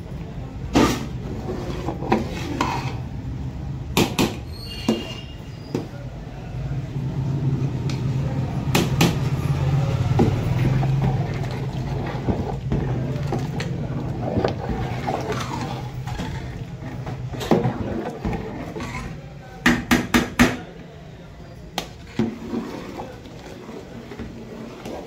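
A ladle stirring a thick curry in a large metal pot, knocking and scraping against the pot's sides, with a quick run of four knocks about twenty seconds in. A steady low hum runs underneath.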